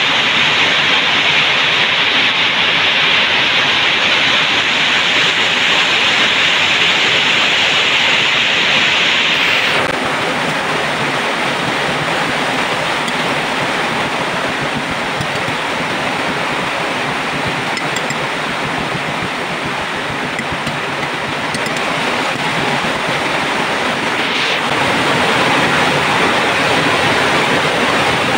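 Steady rushing hiss of water at a rolling boil in a metal cooking pot. About ten seconds in, the sound drops to a slightly softer, duller hiss and then swells again near the end.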